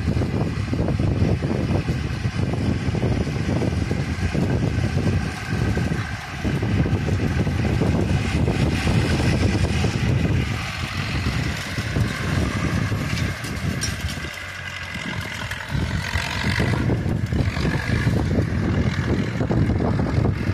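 Zetor tractor's diesel engine running steadily as it drives towards and past, towing a finger-wheel hay rake.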